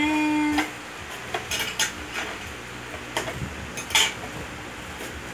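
Cardboard parcel box being opened by hand: a scattering of short tearing and scraping sounds as the tape and flaps are pulled, the loudest about four seconds in.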